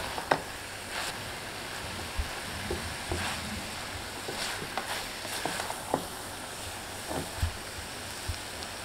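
Wooden spatula stirring and scraping shredded cabbage and peas in a metal pan, with irregular clicks and scrapes over a steady faint sizzle of frying on a fairly high flame.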